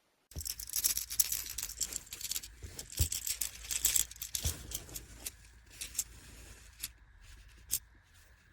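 Rustling and crinkling handling noise with many sharp clicks, dense at first and thinning out, joined by a faint steady high tone about halfway through.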